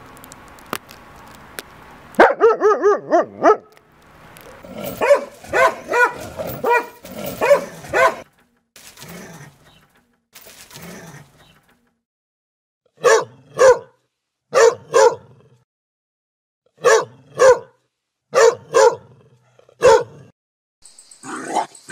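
Dogs barking: a quick run of high yips about two seconds in, then a busier stretch of barking and whining, then sharp barks in pairs, one pair every second and a half or so, in the second half.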